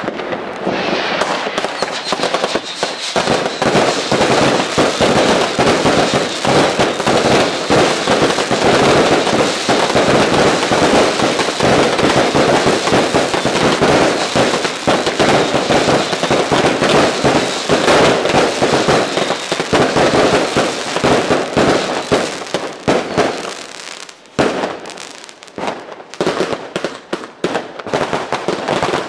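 Fireworks and firecrackers going off in a loud, dense, continuous crackle of rapid bangs, thinning to scattered bangs near the end.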